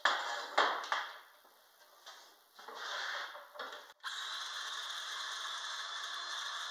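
Knocks and clatter of wood and tools being handled, then about four seconds in a Ryobi One+ cordless power tool is switched on and runs steadily with an even whir.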